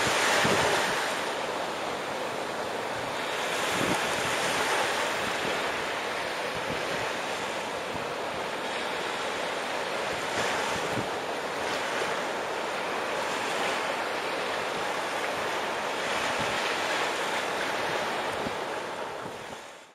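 Small Caribbean waves breaking and washing up a sandy beach, swelling and easing every few seconds, with wind rumbling on the microphone. The sound fades out near the end.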